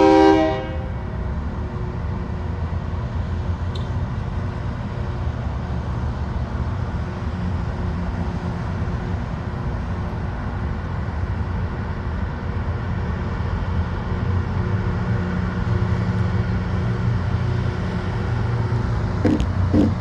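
A Loram rail grinder train's horn chord cuts off about half a second in. After that comes the steady low rumble of the train running along the track, growing a little stronger toward the end.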